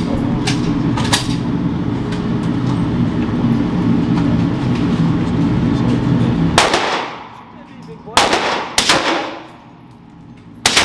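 Gunshots from a range: four loud shots with echoing tails, the first about six and a half seconds in, two close together around eight and nine seconds, and one near the end. Before the first loud shot there is a steady low hum, with two fainter shots early on.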